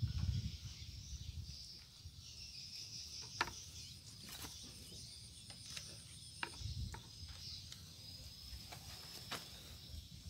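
Insects trilling steadily in a high-pitched chorus, with a few short clicks and low bumps scattered through.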